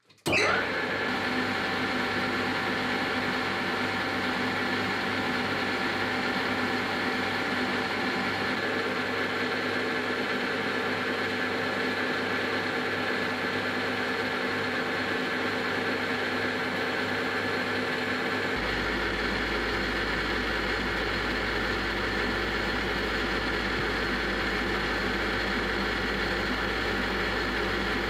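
Metal lathe running steadily, its spindle turning a plastic workpiece while a carbide-insert tool cuts a concave radius into its face. The sound starts abruptly, and a deeper low hum joins about two-thirds of the way through.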